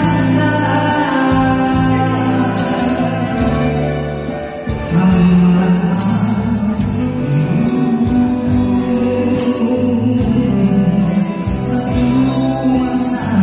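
A small live band playing a song with a man singing into a microphone: acoustic guitars and an electric bass carry the chords and bass line, and a tambourine keeps the beat with several short jingling shakes.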